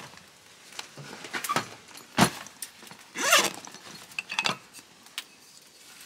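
Rummaging in a canvas storage bag in the back of a ute canopy: rustles, light rattles and clicks, with a sharp knock about two seconds in and a short rasp just after three seconds.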